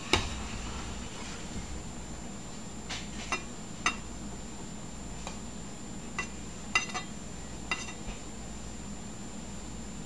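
Metal palette knife clinking against a metal cake turntable while whipped cream is spread: about seven sharp clicks with a short ring, the loudest right at the start and near the middle, over a steady low hum.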